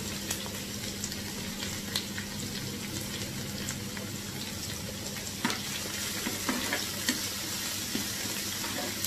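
Onions and spices sizzling as they fry in a pan, with occasional clicks and scrapes of a utensil stirring them.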